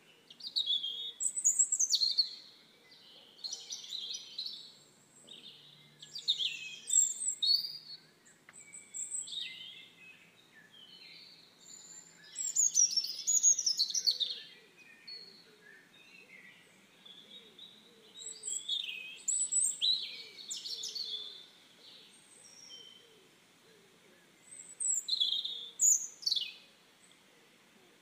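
Several wild birds singing and chirping together in quick, high, overlapping phrases, with a few fast falling whistles.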